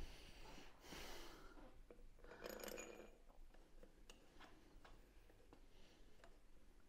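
Near silence with faint handling sounds: a soft rustle or two, then a few light metallic clicks as engine head bolts are picked up and handled.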